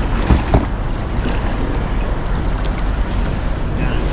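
Steady rush of fast river water splashing around a kayak, with wind buffeting the microphone, and two brief thumps about half a second in.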